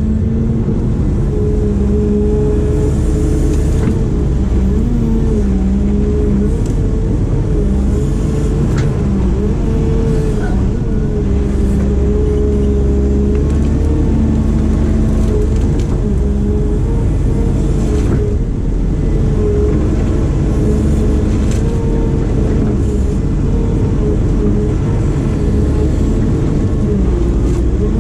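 Construction machine's diesel engine running steadily under work, its pitch wavering slightly as the load changes, with a few faint knocks.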